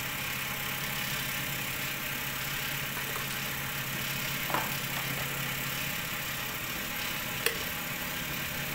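Cotton candy machine running: the spinning head's motor hums steadily under an even hiss. The low tone drops out about six seconds in, and a single sharp click comes near the end.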